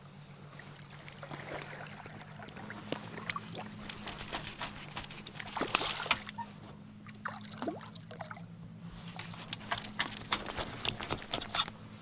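Water sloshing and splashing against a small boat, with scattered clicks and knocks, thickest about halfway through and again near the end, over a steady low hum.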